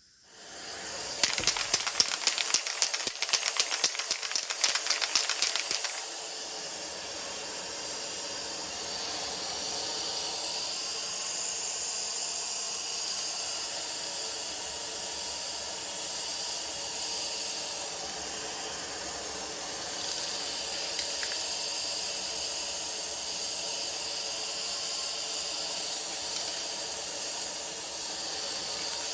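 A rapid rattling for about five seconds, then a steady spraying hiss as silver paint goes onto the rear brake components.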